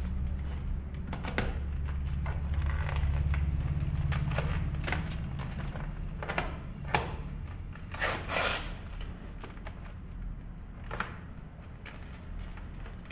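Clear plastic packing wrap crinkling and crackling as it is pulled and torn off by hand, in irregular rustles and snaps. A low hum sits underneath, loudest in the first few seconds.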